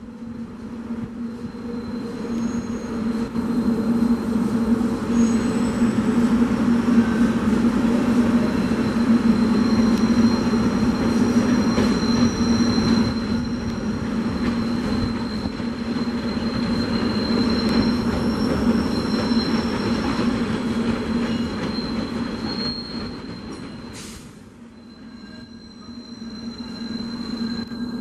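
SEPTA Silverliner IV electric commuter train rolling slowly into the station over curved track and switches, its wheels squealing in thin high tones over a steady low hum. The sound builds over the first few seconds, dips briefly near the end, then rises again as the cars pass.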